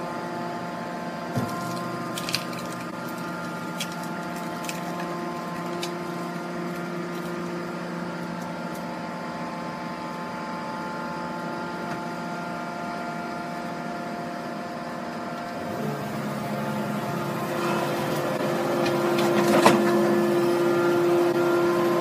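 Hydraulic machinery of a scrap metal baler and its grapple loader running with a steady whine of several tones while scrap is fed into the press. A couple of light metallic clicks come in the first few seconds; about sixteen seconds in the pitch steps up and the sound grows louder, with a sharp metal clunk near the end.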